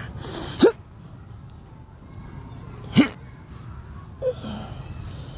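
Two short, loud, sharp bursts of a man's voice and breath, each rising quickly in pitch, about two and a half seconds apart, with a softer third one about four seconds in.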